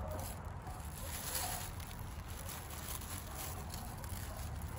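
Thin plastic bag crinkling and rustling as hands dig through loose soil in it, over a low steady rumble.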